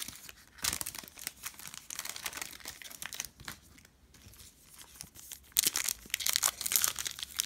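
Light rustling of trading cards being handled and set down, then a foil Donruss Optic card pack crinkling loudly as it is torn open, starting about two seconds before the end.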